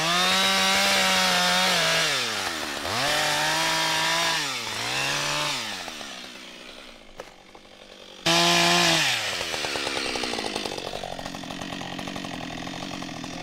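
Chainsaw engine running at high revs, dropping back toward idle and revving up again twice, then dying away. It starts abruptly loud again, falls in pitch and settles into a lower, steadier run.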